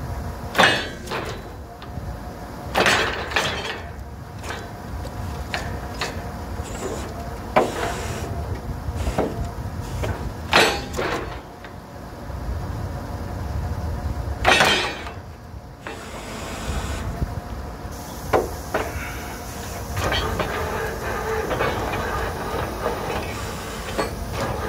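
Truck-mounted borewell drilling rig running steadily with a low drone while drilling, broken every three to four seconds by short, loud hissing bursts.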